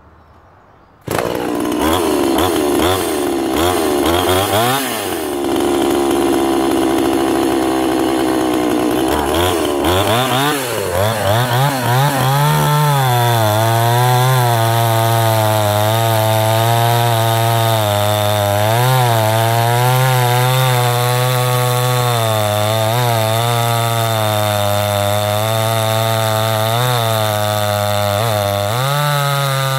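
Castor CX35N two-stroke chainsaw starting up abruptly about a second in and revving unevenly, then opened up and, from about twelve seconds in, running at a steady, slightly wavering pitch as it cuts through a larch log. The owner finds it not quite crisp, with a slight hesitancy when it throttles, after standing for years.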